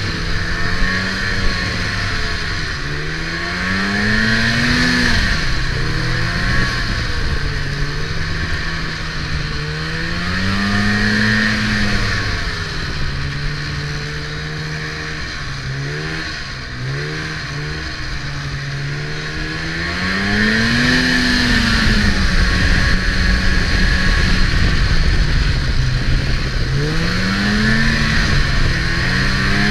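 Snowmobile engine running under way, its pitch rising and falling as the throttle is opened and eased off about four times, with a steady rushing noise underneath.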